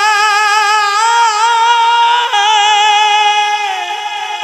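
A man singing a Punjabi Sufi kalam into a handheld microphone, holding long, high notes with a wide wavering vibrato. The voice steps up to a higher note about a second in, drops back around two seconds in, and eases off near the end.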